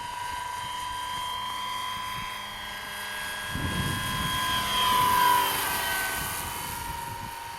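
Electric RC scale helicopter with a four-blade rotor head in flight: a steady high electric motor and gear whine over the rotor noise. About four seconds in it grows louder and peaks, then its pitch falls away as it passes close by.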